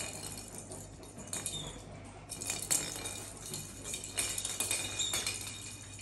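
Light metallic jingling and clinking in scattered small clicks, the loudest clink a little under three seconds in.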